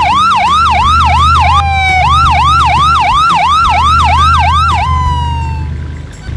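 Cartoon ambulance siren sound effect in a fast yelp, about four quick up-and-down sweeps a second. It breaks briefly into a steady tone near two seconds in, resumes, then trails off in a falling tone around five seconds in. A low steady hum runs underneath.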